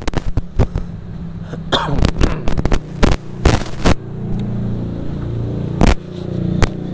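Sharp knocks and crackles, dense for the first four seconds, then a steady low engine hum from a vehicle on the street, with one more knock near the end.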